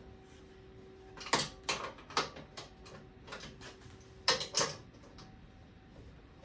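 Ratchet and socket clicking in short strokes, a dozen or so sharp clicks in irregular pairs, as the adjustment nuts on the toilet frame's legs are loosened to lower the frame.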